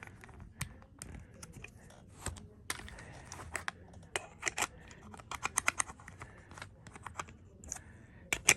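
Irregular sharp clicks and taps of small hard camera quick-release plate adapters being handled and tried against a tripod mount, with quick clusters of clicks about halfway through and near the end.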